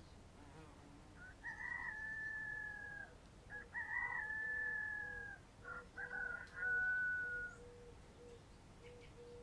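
A rooster crowing three times in a row, each crow a long held call that drops slightly at its end, the third a little lower in pitch.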